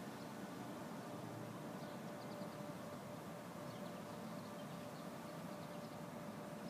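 Faint outdoor ambience: a steady background hum with a few faint, high, short bird chirps scattered through it.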